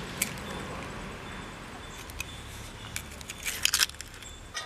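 Eggs being cracked open by hand: scattered sharp cracks, with a quick run of cracking and shell crunching about three and a half seconds in.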